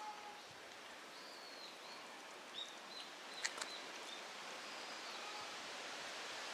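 Steady outdoor background hiss with several short, high chirps of small birds scattered through it, and two sharp clicks about three and a half seconds in.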